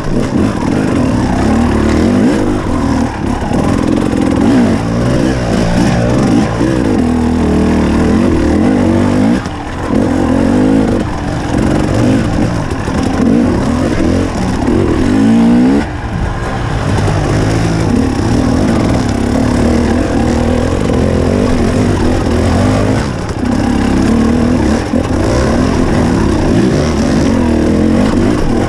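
KTM 300 XC two-stroke single-cylinder engine revving up and down under constantly changing throttle as the dirt bike is ridden off-road. There are brief dips as the throttle is rolled off, about ten and sixteen seconds in.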